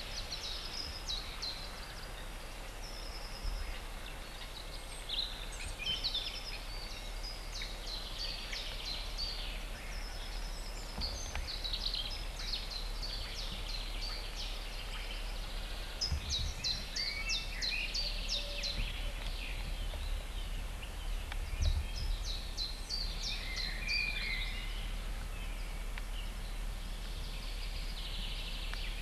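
Several songbirds singing at once in spring woodland, a busy overlapping mix of chirps, trills and rapid repeated high notes. A low steady hum runs underneath.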